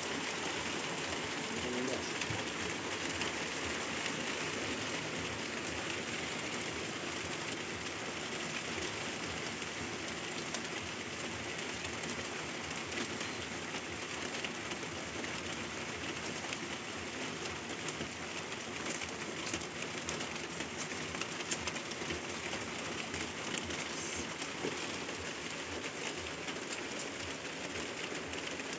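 Steady rain falling, an even hiss with fine ticks of individual drops.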